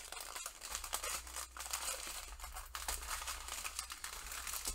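Small clear plastic zip bags of diamond-painting drills crinkling as they are handled and pulled apart, a continuous run of small crackles.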